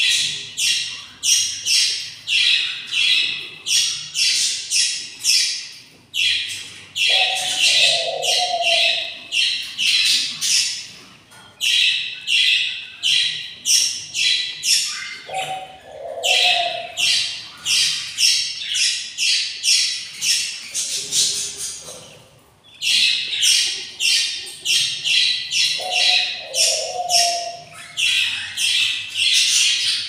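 Budgerigar chicks in the nest box chirping: long runs of rapid, rasping high chirps, about three a second, broken by short pauses, with a lower, shorter call a few times.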